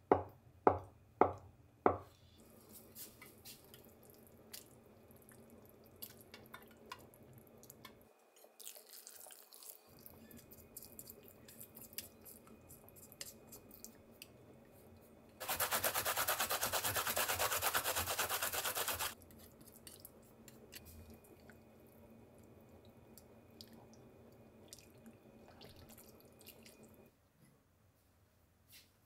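A kitchen knife chops down through tofu onto a wooden cutting board, four quick knocks at the start. Faint clicks and kitchen clatter follow. Then, a little past the middle, about three and a half seconds of loud bubbling, crackling water.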